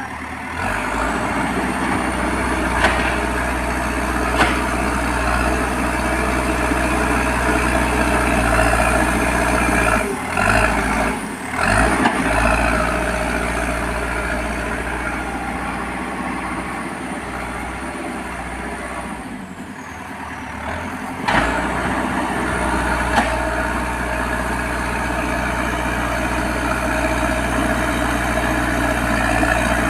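Heavy diesel engine of a backhoe loader running steadily at work. The sound drops briefly about a third of the way in and again about two-thirds in, with a few sharp metallic knocks along the way.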